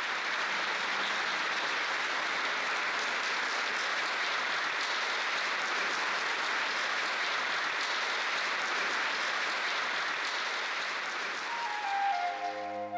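Audience applauding steadily. A few held musical notes come in near the end.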